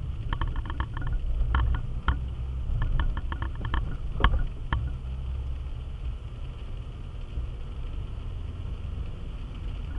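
Steady low rumble of a car's engine and tyres on a wet road, heard inside the cabin. Over roughly the first five seconds there is a run of quick, light rattling clicks, some in rapid strings.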